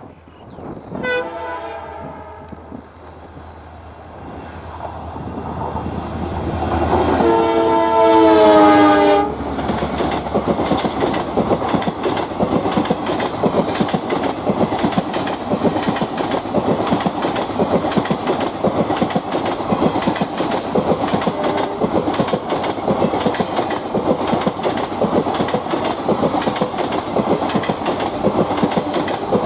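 Diesel freight locomotive's multi-tone horn, sounded briefly about a second in and then in one long blast that grows louder and cuts off abruptly. After it, a long rake of NMG automobile-carrier wagons runs past, wheels clicking rhythmically over the rail joints.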